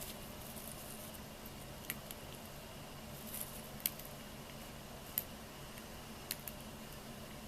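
Lovebird cracking millet seeds with its beak: several small, sharp clicks a second or two apart, the loudest about four seconds in.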